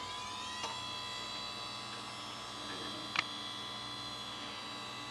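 Dell OptiPlex GX110 desktop computer powering up: its fans and hard drive spin up, their whine rising and levelling off to a steady pitch in the first half second, over a low steady hum. A few sharp clicks come from the machine, the loudest about three seconds in.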